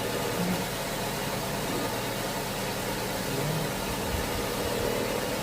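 Nissan Almera's HR15 1.5-litre four-cylinder petrol engine idling steadily, with a steady hiss, while the gearbox fluid level is being set.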